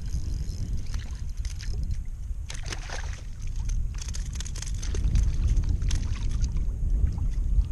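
Wind rumbling on the microphone, with two spells of water splashing and sloshing at a kayak, about two and a half seconds in and again from about four seconds in.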